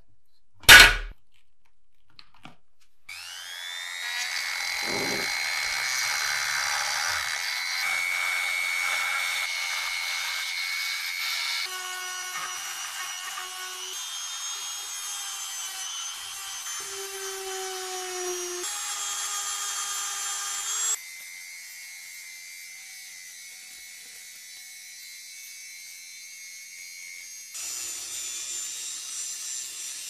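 A sharp click about a second in, then a handheld rotary tool spins up with a rising whine and runs at high speed, its sanding drum grinding against a metal part to smooth it. The pitch and loudness of the whine change abruptly a few times.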